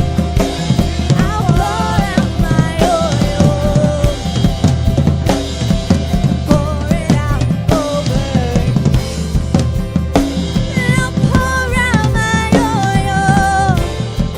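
Live worship band with the drum kit to the fore: a steady bass-drum and snare beat with rimshots, and a wavering melody line over it.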